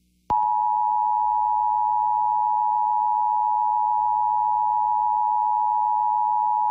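Emergency Alert System two-tone attention signal: a steady dual-tone alarm that sounds about a third of a second in and holds unchanged, announcing a tornado emergency warning.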